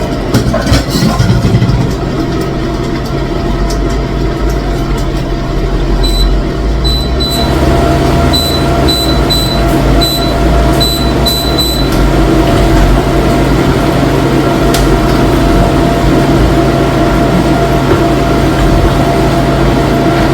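A steady, loud, engine-like mechanical hum with a low drone. From about six to twelve seconds in, a series of short high-pitched beeps sounds over it.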